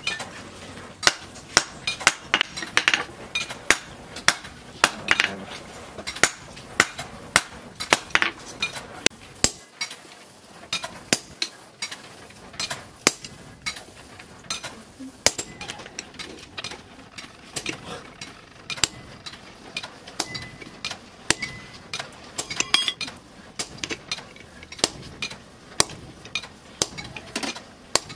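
Hand-hammer blows on a handled top tool held against a red-hot steel axe head on a steel-post anvil: a long run of sharp metal strikes, about two a second.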